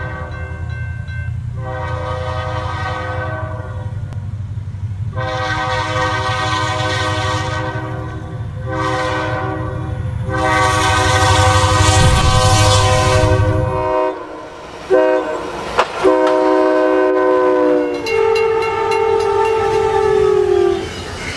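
Locomotive air horn sounding a series of long, multi-note chord blasts over the heavy low rumble of a passing train. The rumble stops partway through, and near the end one horn blast drops in pitch as the train goes by.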